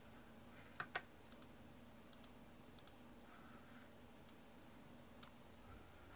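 Light, irregular clicks of a computer mouse and keyboard in use, about ten in all with pauses between them, over a faint steady hum.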